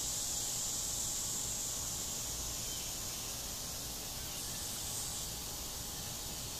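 Steady high-pitched drone of an outdoor insect chorus, keeping on without a break.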